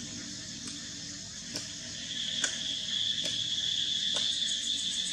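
Insects droning steadily in a high, continuous buzz that swells louder about two seconds in, with faint clicks about once a second.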